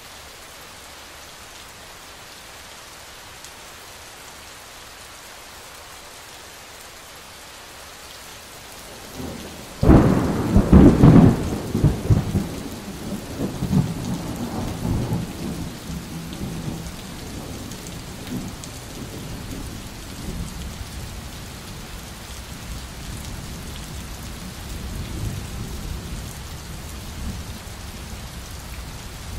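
Steady rain, then a sudden loud thunderclap about ten seconds in. It rolls on as rumbling for several seconds and fades back under the continuing rain.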